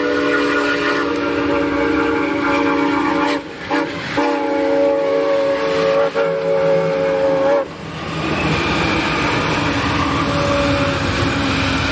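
Santa Fe 3751, a 4-8-4 steam locomotive, blowing its chime whistle: a long blast, a short toot, then a second long blast. It is followed by the steady rumble of the train's wheels on the rails as the cars pass.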